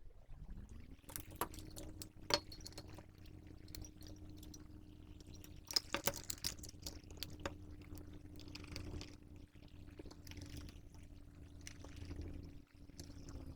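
A small electric motor spins up over about a second, runs with a steady hum, and winds down at the end. Scattered clicks and knocks of parts being handled sound over it.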